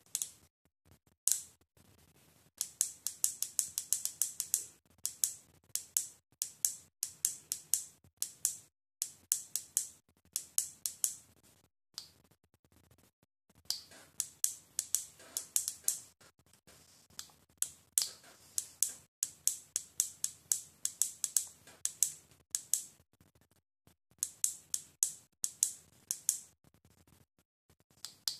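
Runs of rapid, sharp mechanical clicking, about ten clicks a second, each run lasting one to two seconds with short pauses between.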